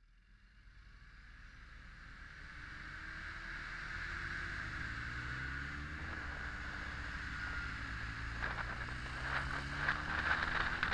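Honda X4 motorcycle's inline-four engine running under way, with wind noise on the camera microphone. It fades in from silence over the first few seconds, and the engine pitch rises and falls slowly. Rougher wind buffeting comes in over the last couple of seconds.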